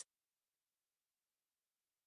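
Near silence: a digital pause with no audible sound.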